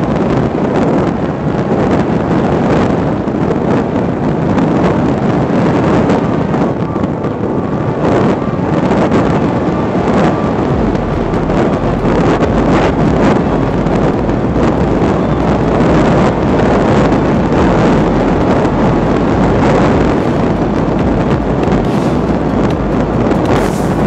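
Steady rush of wind on the microphone of a camera mounted on a Parrot Disco fixed-wing drone in fast, low flight, mixed with the drone's electric pusher-propeller motor running.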